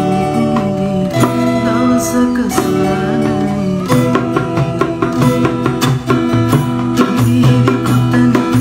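Acoustic cover of a Sinhala song: a bamboo flute carries held melody notes over strummed acoustic guitars and the steady beat of a rope-tensioned dholak drum, with a man's voice singing.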